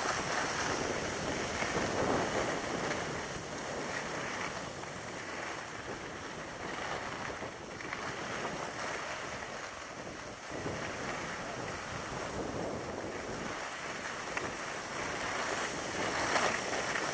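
Skis sliding and scraping on snow, mixed with wind buffeting the microphone of a camera carried by a skier: a steady rush that swells and eases.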